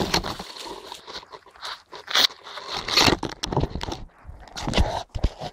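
Irregular crunching and rustling of dry fallen beech leaves underfoot, with a few dull knocks near the end.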